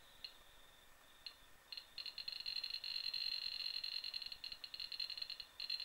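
Home-made Matchless induction-balance metal detector's audio output: a faint steady high tone with a couple of short clicks, then from about two seconds in a loud high-pitched tone that stutters rapidly on and off. It is the detector signalling a small brass fitting brought within about 16 cm of its search coil.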